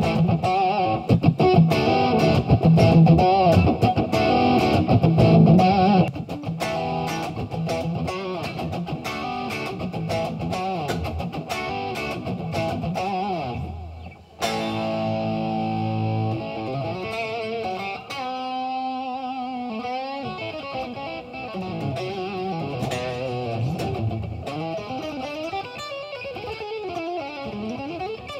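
Gibson Les Paul with humbucking pickups played through an EarthQuaker Devices Plumes overdrive pedal: overdriven chords and riffs. The playing is loudest in the first six seconds, breaks off briefly about halfway, then goes on with ringing held notes, some with vibrato.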